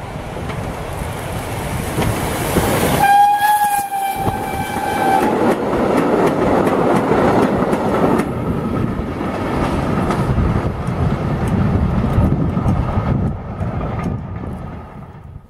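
Ol49 steam locomotive with five carriages running through a station at speed. About three seconds in it gives a steam whistle blast of about two seconds. Then the locomotive and carriages rumble past, their wheels clicking over the rail joints, fading away near the end.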